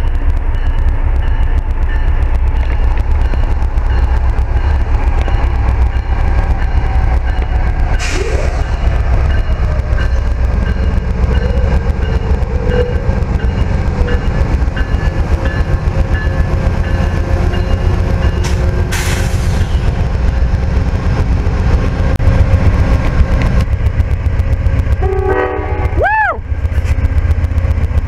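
Amtrak P42DC diesel-electric passenger locomotive approaching and drawing alongside at the head of its train, its GE V16 diesel engine giving a heavy, steady rumble.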